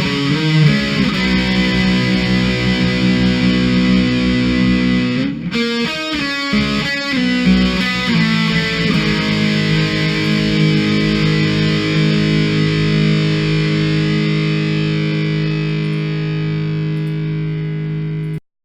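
Intro music of distorted electric guitar chords, with a choppy, stuttering passage about five seconds in, then a long held chord that cuts off suddenly near the end.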